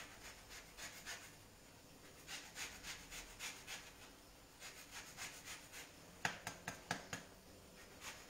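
Faint rasping strokes of a metal blade working a lemon on a wooden cutting board, coming in runs of several quick strokes, about three or four a second, with short pauses between.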